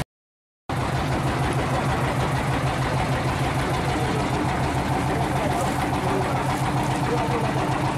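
Motorboat engine running steadily while the boat is under way, a fast pulsing drone, with water rushing past the hull. The sound cuts out completely for the first half-second or so, then the drone returns.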